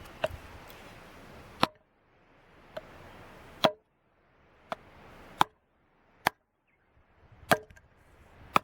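Firewood being chopped or split: about nine sharp strikes, roughly one a second, some harder than others.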